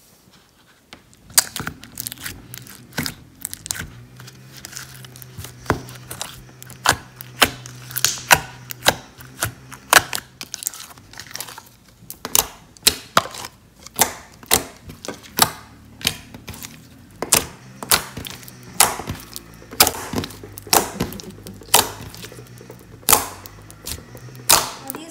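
Red-tinted clear slime being mixed, squeezed and pressed by hand. It gives off irregular sharp, wet clicks and pops, about one or two a second, starting about a second in.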